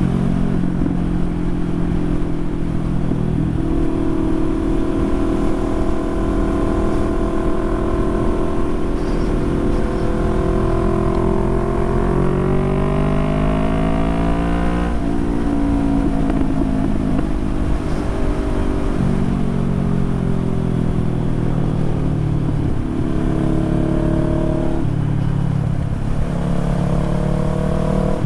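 Motorcycle engine running under way, holding steady revs, then climbing in pitch for a few seconds about halfway through and dropping suddenly as it shifts up; the revs change step-wise a few more times near the end.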